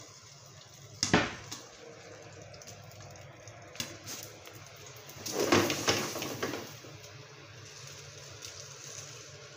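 Last few popcorn kernels popping in a covered frying pan on a gas stove: a sharp pop against the lid about a second in, a smaller one near four seconds, and a longer clatter of pops and pan noise about halfway through, over a low steady hum.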